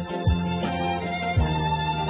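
Background music: steady held tones over a deep drum beat, two low drum hits about a second apart.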